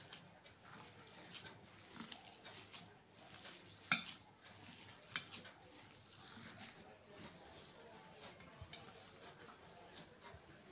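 Bare hands mashing boiled, grated potato on a stainless steel plate: soft squishing and rubbing. A few sharp clicks against the steel come at the start and about four and five seconds in.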